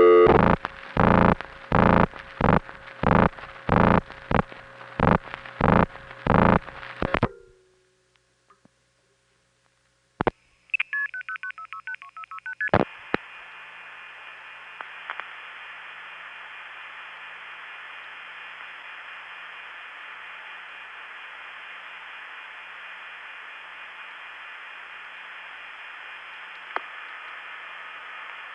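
Long-distance telephone line on a 1970s call: a tone pulsing on and off about eight times, a pause, a click, a quick string of multifrequency outpulsing digits, then a second click and a steady open line hiss with faint tones as the far end goes off hook.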